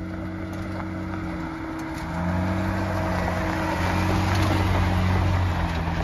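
Lifted four-door Jeep Wrangler driving past on a dirt trail: a steady engine note with tyre noise over the dirt and gravel, growing louder about two seconds in.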